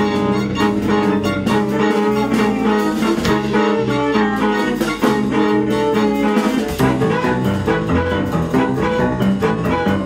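Live band music: a violin bowing a quick melody over bass guitar and drums.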